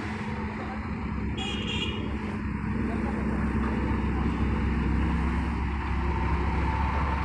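Engine of a heavy vehicle or road-works machine running steadily at a low, even hum. About a second and a half in there is a brief high tone like a toot.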